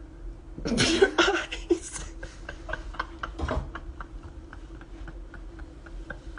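Phone handling noise: a rustle of fabric rubbing against the phone's microphone for about a second and a half, then a run of light clicks and taps, several a second, over a faint steady hum.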